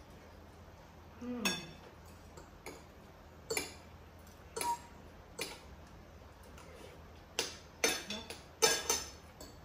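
Spoons and forks clinking against ceramic plates and a soup bowl during a meal: about nine short, irregular clinks, several close together near the end.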